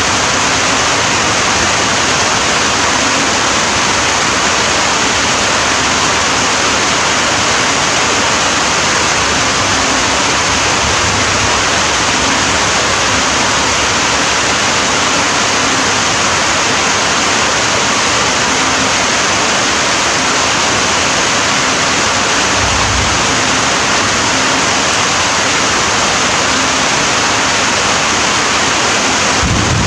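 Steady rain falling, an even loud hiss, with a brief low rumble about three quarters of the way through.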